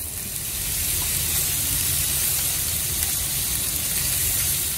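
Pork belly chunks sizzling in hot oil in a stainless steel pan as they are seared. The sizzle grows louder over the first second as more pieces go in, then holds steady.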